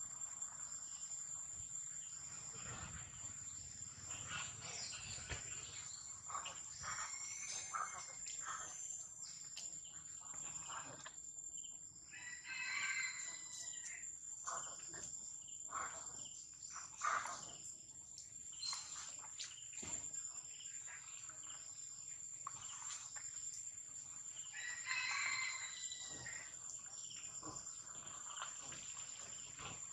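Infant long-tailed macaque giving high-pitched screams in short bursts, several times, while it is dragged by the tail. A steady high insect drone runs underneath.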